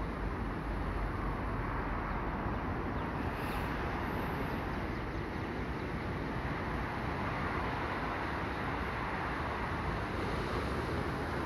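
Steady wind noise on the microphone: a low rumble under an even hiss, with no distinct events.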